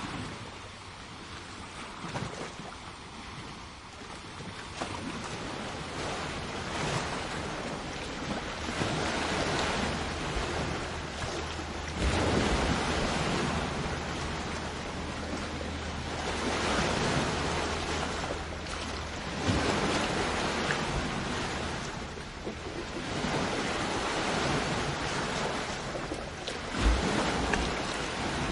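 Sea waves breaking and washing up onto the shore. The hiss of the surf swells and falls back in slow surges every few seconds.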